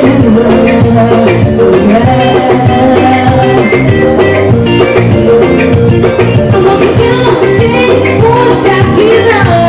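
Live band music: a woman sings lead into a microphone over electric guitar and a steady beat, loud through the stage sound system.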